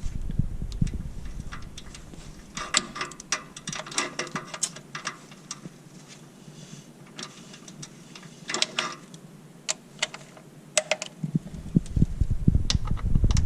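Ratchet wrench clicking in short runs, driving in the bolts of a Ford 6R80 transmission pan, with a low rumble at the start and again near the end.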